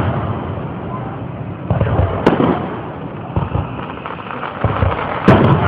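Aerial fireworks shells bursting: several booms, the sharpest about two seconds in and another near the end, with rumbling echoes between them.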